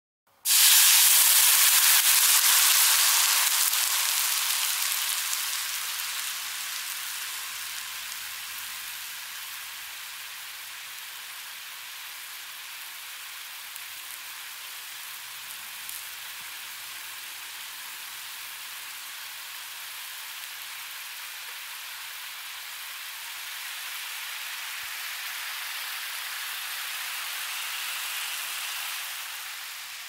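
Water sizzling on a hot pan: a loud hiss that starts suddenly, dies down over several seconds to a steady quieter sizzle, swells slightly again and then drops near the end.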